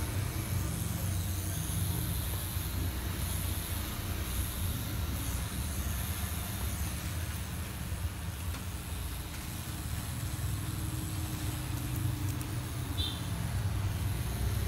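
Tattoo machine buzzing steadily as it works, a continuous low hum.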